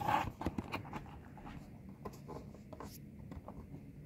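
Cardboard laptop packaging being handled: faint scraping and rubbing with scattered light taps as a cardboard flap is lifted and bent back.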